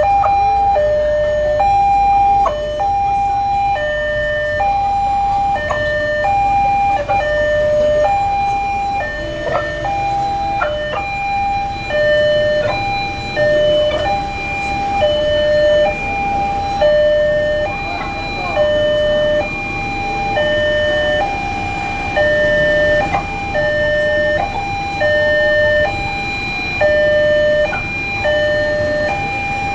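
Railway level-crossing warning alarm sounding with the barriers closed, an electronic two-tone signal that keeps alternating between a higher and a lower pitch: the warning that a train is approaching the crossing.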